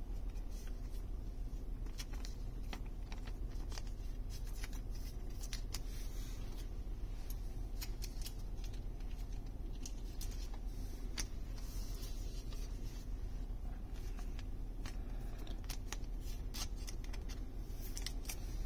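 Thin clear plastic card sleeves crinkling and rustling as trading cards are slid into them, with many small scattered clicks over a steady low hum.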